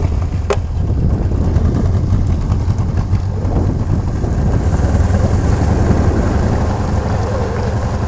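Tohatsu 50 two-stroke outboard with a jet drive running at a steady speed, driving the boat upstream on a mountain river.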